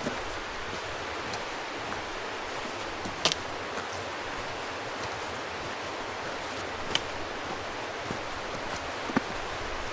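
Steady rushing outdoor hiss with three sharp clicks, a few seconds apart.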